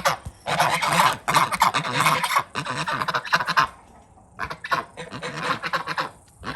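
Domestic geese honking, harsh calls in loud overlapping bursts that grow quieter and shorter after a lull about four seconds in.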